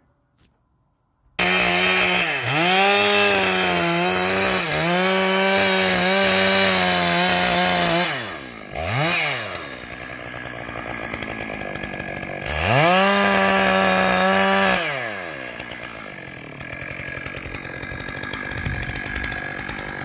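Chainsaw starting about a second and a half in at full throttle, its pitch dipping twice as the bar loads in a cut into the redwood trunk. It then drops to idle, is revved high again for a couple of seconds, and falls back to idle near the end.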